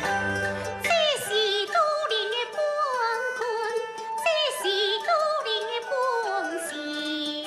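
Gezaixi (Taiwanese opera) singing with instrumental accompaniment. About a second in, a voice enters with sliding, ornamented lines and vibrato over held accompanying notes.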